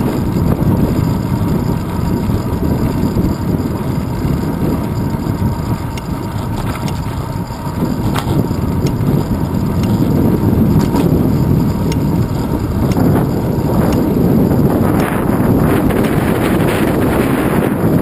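Wind rushing over a handlebar-mounted GoPro camera on a moving road bicycle, mixed with tyre rumble on asphalt. A few short knocks come through, more of them near the end.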